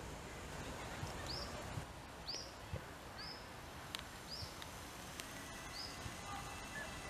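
A bird repeating a short, high call about once a second, six times in all, over a soft steady background hiss.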